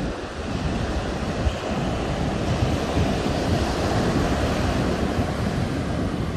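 Ocean surf breaking on a sandy beach, with wind buffeting the microphone.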